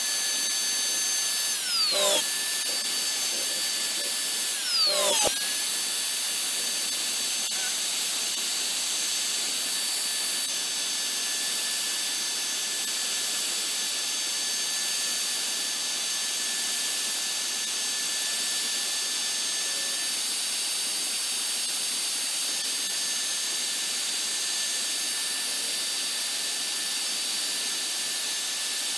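Homemade CNC router's spindle motor running with a steady high-pitched whine as its small bit mills into a wood blank. About two and five seconds in, the pitch drops briefly and snaps back up.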